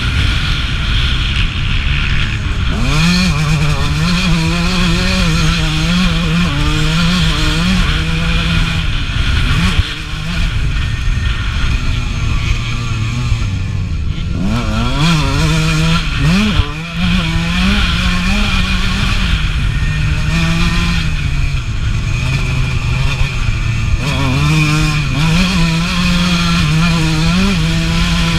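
1989 Suzuki RM125's single-cylinder two-stroke engine ridden hard, revving up and dropping back through the gears. The throttle shuts briefly about ten seconds in and again around sixteen seconds, then the engine picks back up.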